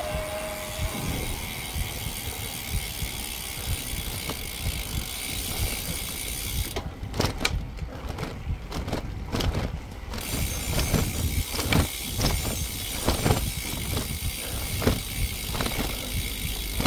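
Bicycle rolling along at riding speed, heard from a handlebar-mounted phone: a steady low rumble of road and wind noise with irregular clicks and rattles, more of them in the second half.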